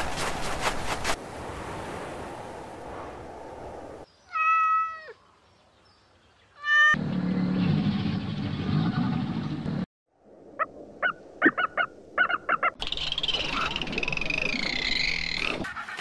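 A string of separate animal calls, cut together: two short pitched calls that bend in pitch, a quick run of short chirps, then a long wavering high call.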